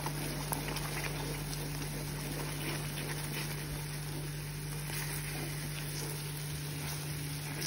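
Caramel sauce of melted sugar and butter bubbling in a pan as cream is poured in and stirred with a wooden spoon, over a steady low hum.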